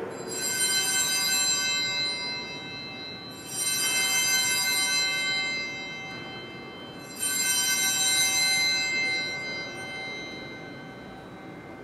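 Altar bells rung three times, a few seconds apart, each bright ring dying away before the next. These are the sanctus bells marking the elevation of the consecrated host at Mass.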